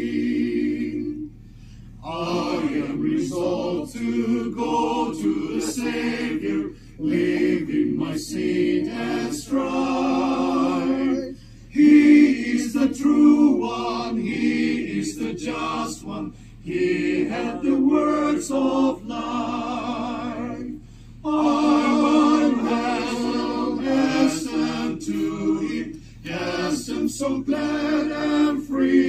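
A small choir of men and women singing a cappella from song sheets, in phrases of about five seconds with brief breaks for breath between them.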